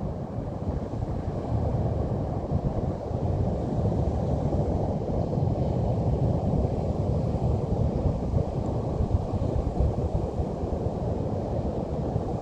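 Pacific Ocean surf breaking on a beach, a steady wash of low noise, with wind buffeting the microphone.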